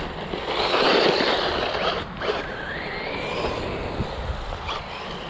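Small battery-powered RC truck driving on a gravel path: a hissy rush of tires on gravel, loudest about a second in, then the electric motor's whine gliding up in pitch about three seconds in.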